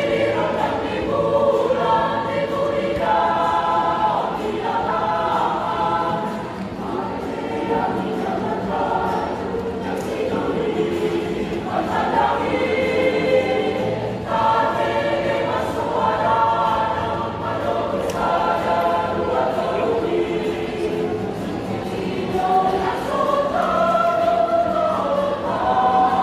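Mixed choir of women and men singing together in harmony, in long sustained phrases.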